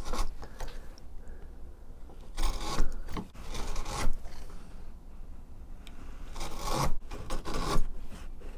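Wood chisel paring and scraping inside drilled holes in a wooden bass guitar body wing: several short scraping strokes at irregular intervals as the ridges between the weight-relief holes are flattened off.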